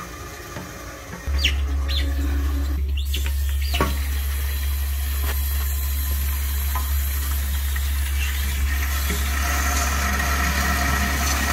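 Water rushing through the supply line into a Flushmate pressure-assist toilet tank as the stop valve is opened. It starts suddenly about a second in, as a steady low hum with a hiss. A few short squeaks sound in the first few seconds.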